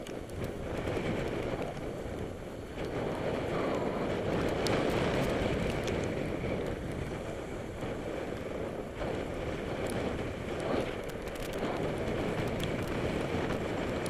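Wind rushing over the microphone of a camera riding on a bicycle, mixed with tyre and road noise, rising and falling a little, with a few small clicks.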